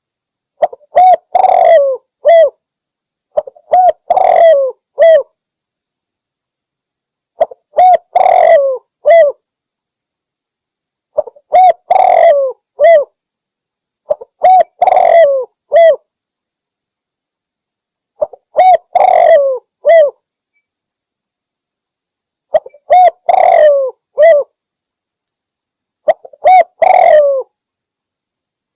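Spotted dove (Javan 'derkuku') cooing loudly. A phrase of several coos is repeated about every four seconds, with silence in between.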